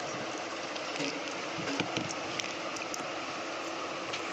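Steady background hiss with a few faint ticks and taps from pointed gourd being sliced on a boti blade and handled over a steel bowl.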